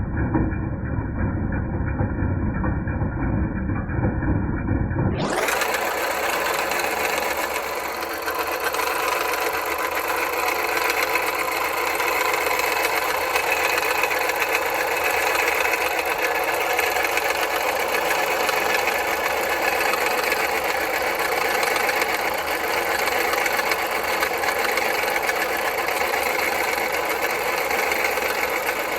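2010 Jeep Patriot 2.0 engine running with a fast, rhythmic metallic clanking from the engine bay. The owner found the fault in the alternator, not the pulleys, tensioner or belt. About five seconds in, a cut switches to a brighter, clearer recording of the same clatter.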